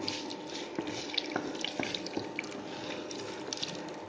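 Mustard seeds, fenugreek seeds and dried red chilies sizzling in hot oil in a pan, with a steady hiss and scattered, irregular pops and crackles from the seeds.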